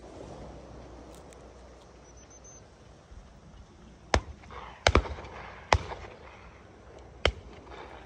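Shotguns firing five shots over about three seconds, starting about four seconds in, two of them in quick succession like a left-and-right from a double-barrelled gun.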